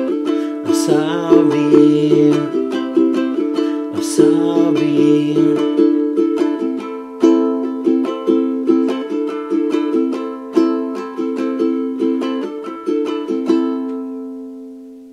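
Ukulele strumming the outro chords, from C to A minor. The strums thin out to single, spaced chords in the second half, and the last chord is left to ring and fade away near the end.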